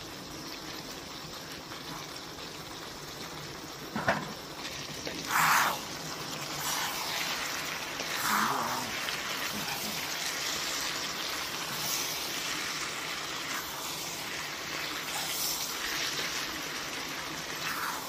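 Snow peas and beef stir-frying in a pan: a steady sizzle, with a few louder strokes as the food is tossed, the loudest about five and a half seconds in.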